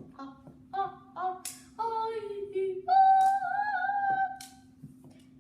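A voice making wordless sung sound effects: a run of short pitched syllables, a falling note, then one long held high note about three seconds in.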